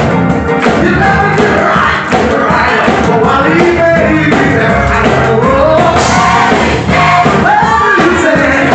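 Live gospel song: a male lead singer sings through a microphone and PA over electric keyboard accompaniment, with sliding, bending vocal runs.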